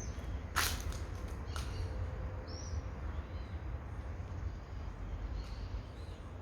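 Outdoor ambience: a steady low rumble, one sharp click about half a second in, and a few faint bird chirps.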